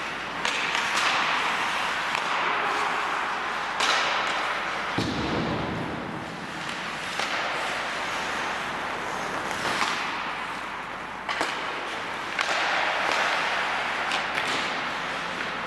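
Ice hockey play on an indoor rink: skate blades scraping across the ice in a rising and falling hiss, with a few sharp knocks of sticks, puck and boards.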